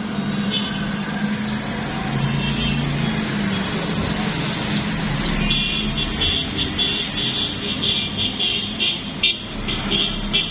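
Road traffic noise with a steady low hum. A higher tone joins about halfway through, along with scattered light clicks.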